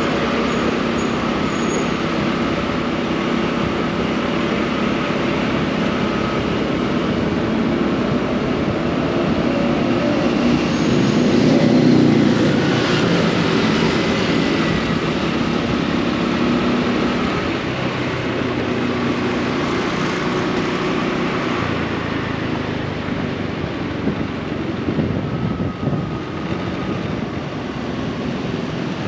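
Motorbike engine running steadily while riding through city street traffic, with road and traffic noise around it. The noise swells for a few seconds about twelve seconds in.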